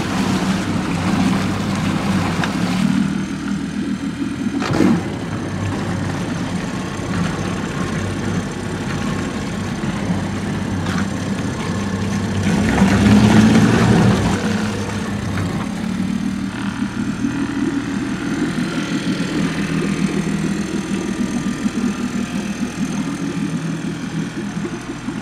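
2008 Mercury 8 hp four-stroke twin-cylinder outboard running steadily in a test tub, its propeller churning the water. It gets louder for a second or two about halfway through, and there is a single click near the start.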